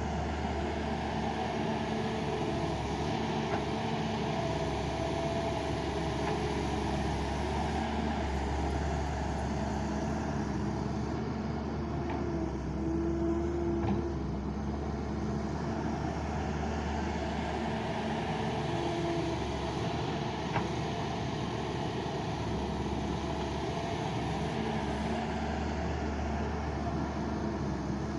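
Doosan excavator's diesel engine running steadily under hydraulic load while digging and loading mud, with a couple of faint knocks.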